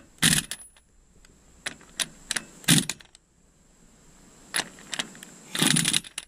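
Earthquake XT impact wrench run on a UTV's rear hub nut in short bursts of hammering, about half a dozen, the longest near the end, as the nut is run down and tightened.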